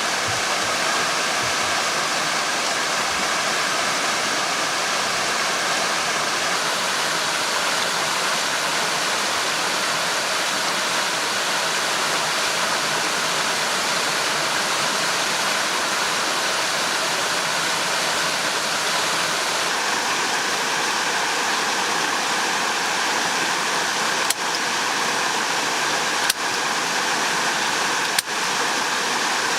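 Steady rushing of flowing water, like a stream or small waterfall, with three sharp clicks about two seconds apart near the end.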